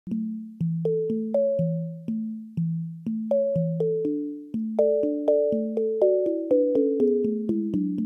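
Instrumental song intro played on a keyboard. Separate notes are struck about twice a second and each fades away, a low bass alternating between two notes under a simple higher melody.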